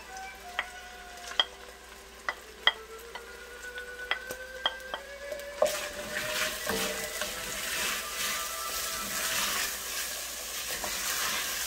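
Diced onions and ají amarillo frying in hot oil in an enamelled cast-iron pot while a wooden spoon stirs them. The first half holds only scattered sharp taps of the spoon; about halfway through a steady sizzle swells up and carries on.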